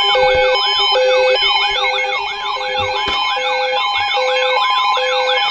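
Several weather alert radios alarming at once: repeating warbling siren sweeps, evenly pulsed beeps and steady alert tones. A low steady tone stops about three seconds in. The alarms announce an incoming special marine warning.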